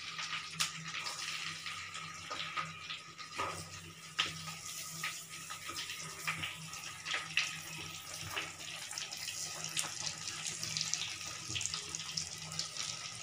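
Hot oil in a kadhai sizzling and crackling steadily as masala-stuffed brinjal slices fry, with sharper pops here and there.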